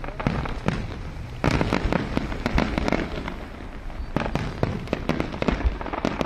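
Aerial fireworks display: a rapid, irregular series of bangs and crackles from shells bursting overhead, with a sudden dense volley about one and a half seconds in and another around four seconds in.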